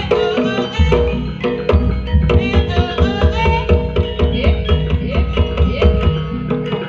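Jaranan music: fast, dense hand-drum (kendang) strokes with ringing gamelan-style pitched percussion and a wavering high melody line over it, playing without a break.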